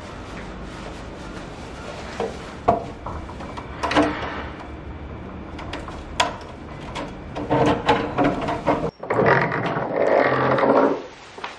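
Sharp clicks and rattles of a metal door latch being worked, with a plastic carrier bag rustling, over a steady low background hum. The sound changes suddenly about nine seconds in to a louder rustling stretch lasting about two seconds.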